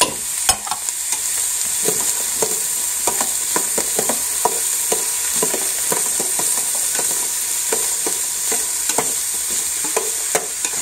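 Diced onion, carrot and celery sautéing in olive oil in a stainless steel stockpot, sizzling steadily, while a metal spoon scrapes and knocks against the pot about twice a second as the vegetables are stirred.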